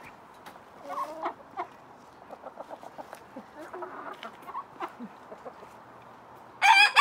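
Chickens clucking softly in a quick run of short calls, then a rooster starts a loud crow near the end.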